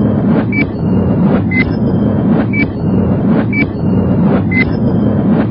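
Countdown sound effect: a click and a short high beep about once a second, the beeps alternating slightly in pitch, over a steady low drone.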